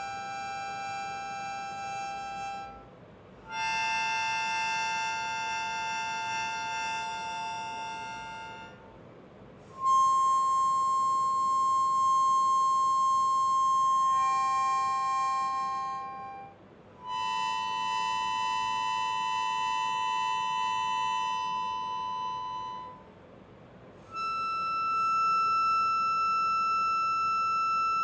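Background music of slow, held chords that change about every six seconds, with a brief break between each.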